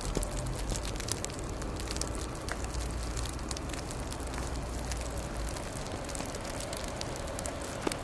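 Falling snow pattering, a steady soft hiss full of tiny ticks and crackles. A low rumble underneath stops about five and a half seconds in.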